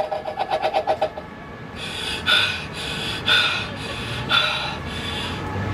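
Fast dance music with a quick beat playing from a busker's portable loudspeaker breaks off about a second in. After a short lull, a breathy hissing sound repeats about once a second, four times.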